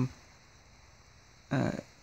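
A man talking, with a pause of about a second and a half between words in which only quiet room tone is heard.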